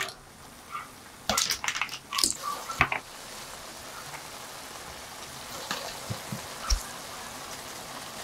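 Tongs clacking and scraping against a stainless steel pan as spaghetti with clams is tossed, a few sharp knocks in the first three seconds. A steady sizzle from the hot pan follows, with a single soft thump partway through.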